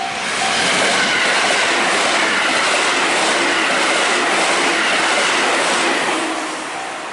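A train passing close by: a loud, steady rush of running noise that fades about six seconds in.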